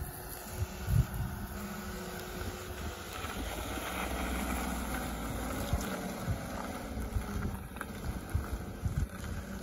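Maruti Suzuki Wagon R Stingray's small three-cylinder petrol engine running as the car crawls past over a dirt mound, growing louder about midway and easing off as it moves away. Wind buffets the microphone throughout.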